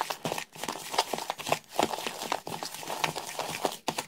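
A metal spoon stirring a dry mix of ground spices and flour in a large bowl: an uneven run of gritty scrapes and light taps.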